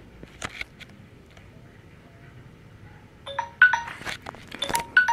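Electronic chime alert of several short bell-like notes, starting about three seconds in and sounding again near the end. It signals that the answering time is up.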